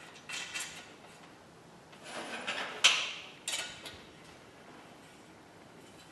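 Small metal hardware clinking as washers, the basket and mudguard brackets and a nut are slid onto a tricycle's front axle end by hand. There are several short clusters of clicks, the sharpest about three seconds in, and then they stop.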